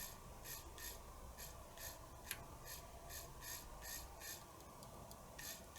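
Small screwdriver turning a screw into the mechanism by hand, a short faint scrape with each twist, about two to three a second, pausing briefly near the end.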